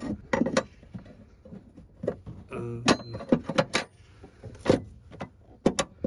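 Metal battery hold-down bracket clinking and knocking against the battery and the boot floor as it is fitted over the new battery: a run of short, sharp clinks in several clusters.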